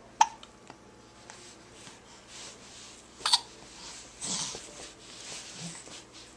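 Two sharp hiccups about three seconds apart, one just after the start and one a little past the middle.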